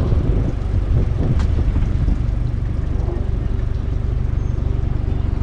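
A sailboat's gasoline motor running steadily, a continuous low drone with a fast, even pulse.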